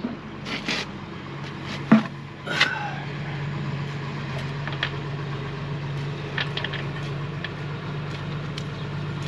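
Massey Ferguson tractor engine idling steadily, warmed up. A few sharp metal clanks and knocks in the first three seconds, the loudest about two seconds in.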